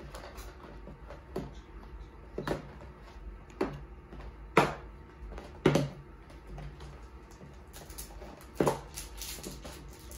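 Baseball cards being handled and flipped through one by one: a sharp card click about once a second, with a crinkly rustle of card packs in the last couple of seconds.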